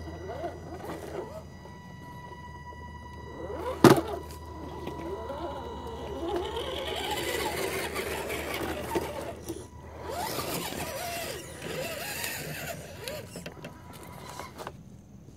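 Small electric motors of RC rock crawler trucks whining and wavering in pitch with the throttle as they climb a rocky trail, tyres grinding over stones. A sharp knock about four seconds in is the loudest sound.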